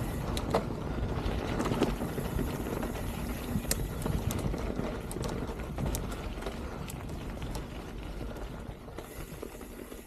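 Mountain bike rolling down a dirt and rock trail: steady tyre and wind rumble on the microphone, with scattered sharp clicks and rattles from the bike. The noise fades slowly toward the end.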